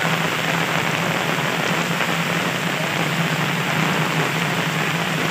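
Steady rain falling onto an umbrella held just overhead. It makes an even, continuous rush with no breaks.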